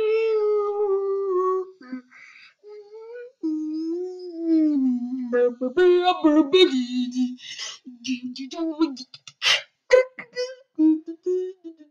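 A high voice humming long held notes that slowly sink in pitch, then breaking into short vocal bits, hisses and mouth clicks over the second half.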